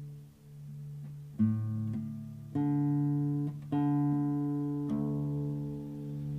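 Classical guitar played lying flat, its strings plucked four times at roughly one-second spacing, the first pluck the sharpest, with each chord ringing on long. A low steady tone hums underneath.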